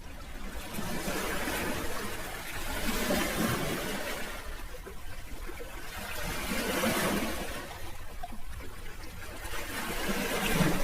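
Sea waves, their rushing hiss swelling and fading away several times.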